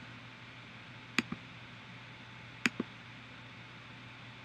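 Two sharp clicks from working the computer, each a quick double of press and release, about a second and a half apart, over a faint steady background hum.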